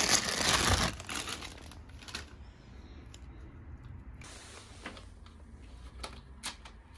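Thin clear plastic bag crinkling as a power cable is pulled out of it, loudest in about the first second. Quieter rustling and a few light clicks follow as the cord is unwound and handled.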